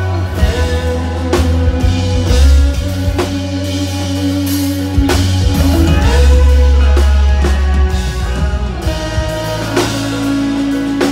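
Live rock band playing loudly: distorted electric guitar, bass guitar and drum kit, with sung lead and backing vocals.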